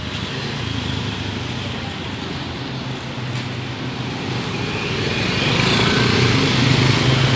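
Motor scooter engines running in street traffic, getting louder from about halfway through as a group of scooters rides close by.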